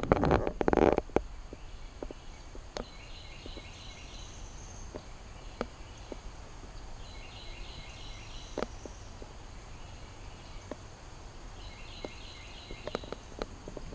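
A bird repeats a short call of quick high notes three times, about every four seconds, over a low steady rumble with scattered small clicks.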